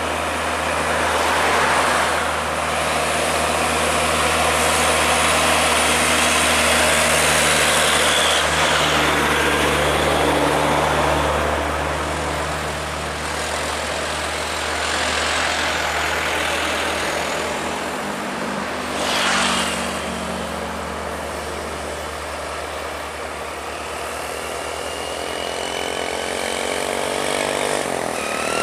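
Diesel trucks passing close by one after another, their engines running under the noise of tyres on the road. About two-thirds of the way through there is a brief burst of noise. Near the end an engine note rises as a truck pulls harder.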